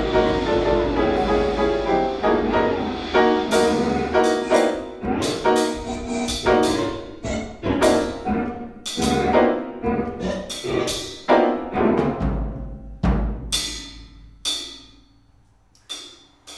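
Improvised piano and drum-kit music: piano notes with soft-mallet strokes on cymbals and drums ringing out. The strikes thin to a few last isolated hits as the music dies away.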